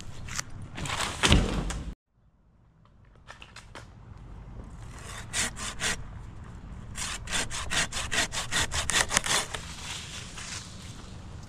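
Hand pruning saw cutting through a dead birch limb in quick back-and-forth strokes, about four or five a second near the end.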